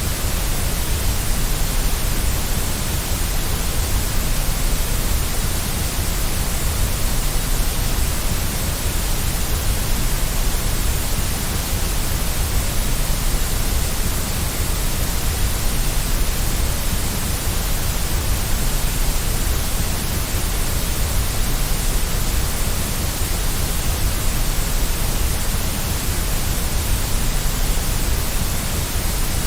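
Steady white noise: an even, unchanging hiss with a low rumble underneath.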